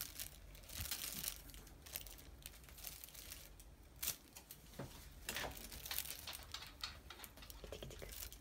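Irregular rustling and crinkling as a kitten bats and grabs at a feather teaser toy, its paws scuffing on a fleece cat tree.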